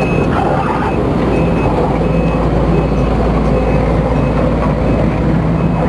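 Case CX210B excavator's diesel engine running steadily under a loud low hum, with the travel alarm sounding repeated short high beeps, the sign that the machine is tracking.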